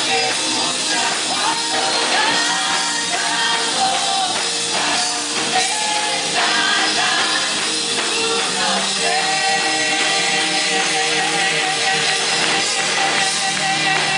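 Live Spanish-language worship song: a man and a woman singing into handheld microphones over instrumental accompaniment, with held sung notes.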